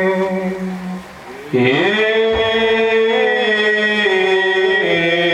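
A man's voice chanting an Orthodox Syriac liturgical hymn in long held notes. The chant breaks off briefly about a second in, comes back with a note sliding upward, and steps between held pitches a few times after.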